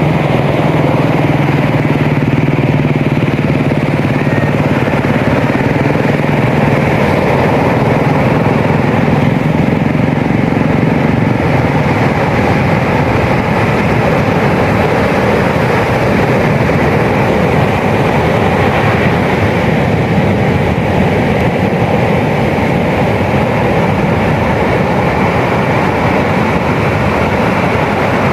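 Ocean surf breaking on a beach, a loud continuous rumble of waves. A low steady hum sits under it for about the first twelve seconds, then fades out.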